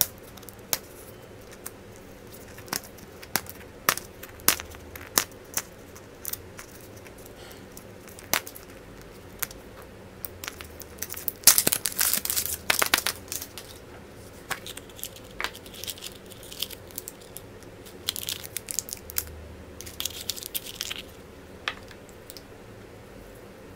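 Surprise-egg wrappers being torn open and crinkled by hand, among scattered sharp clicks and taps. The crinkling is densest about halfway through and again later on.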